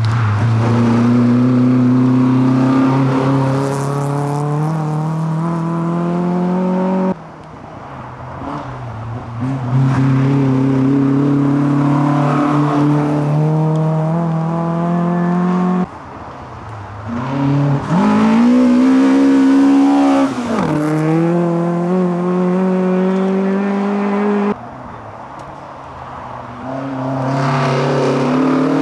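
Historic rally car engines accelerating hard past on a special stage, revs climbing steadily, one car after another. Around the middle one engine drops and climbs again in a quick lift of revs, and the sound breaks off abruptly about three times where the recording cuts from car to car.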